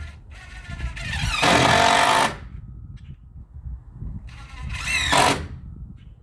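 A power drill-driver driving two screws into wooden fence pickets: two whirring bursts a couple of seconds apart, each rising in pitch as the motor spins up, with small clicks in between as the next screw is set.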